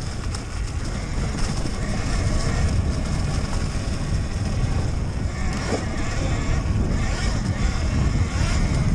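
Riding noise from a Talaria Sting MX4 electric dirt bike on a rough dirt trail: heavy wind rumble on the microphone, with tyres and chassis rattling over the ground. There is no engine note, because the electric drive is near silent.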